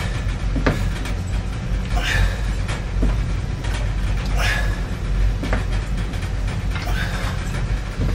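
A man doing dumbbell walking lunges: a foot lands with a thud about every two and a half seconds, with a sharp exhale between steps, over a steady low rumble.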